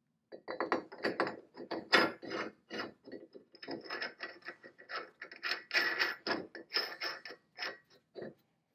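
Drop-forged steel parts of a J.H. Williams No. 16 Vulcan chain pipe wrench clinking and rattling as the jaws are handled and the pivot bolt is fitted. A quick, irregular run of metallic clicks and knocks with a slight ring, loudest about two seconds in.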